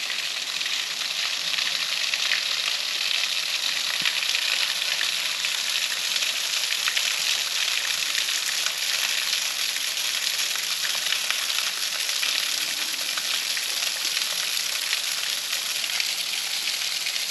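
Low-flow waterfall splashing steadily onto rock, a light, even hiss of falling water.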